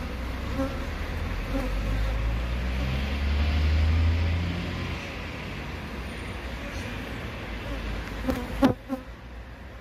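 Korean native honeybees (Asian honeybees) buzzing as they fly in and out of a log hive's entrance, bringing in pollen. A few bees pass close by with louder buzzes, the loudest one near the end. A low rumble swells and fades during the first half.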